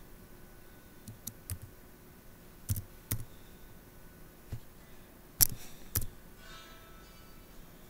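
Scattered clicks of computer keys, about ten separate presses spread unevenly over several seconds, the two loudest close together a little past the middle.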